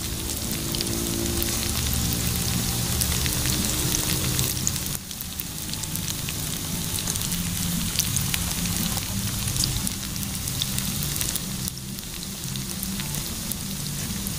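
Moringa-leaf fritters deep-frying in a pan of hot oil: a steady sizzle full of small pops and crackles.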